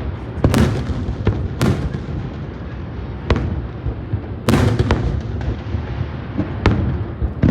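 Fireworks display bursting: about five sharp bangs, a second or two apart, over a continuous low rumble and crackle of further bursts.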